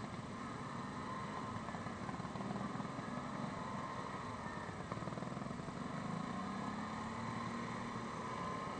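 Yamaha Grizzly 550 ATV's single-cylinder engine running at low road speed, its pitch rising about six seconds in.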